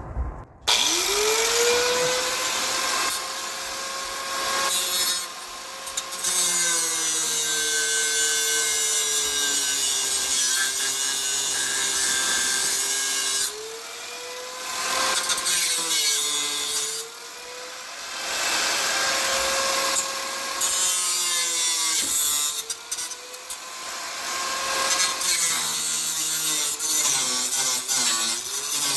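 Cut-off wheel tool spinning up about a second in, then cutting metal to free a fastener that cannot be reached with a socket. Its high whine sags in pitch as the wheel bites and climbs back during several short let-offs.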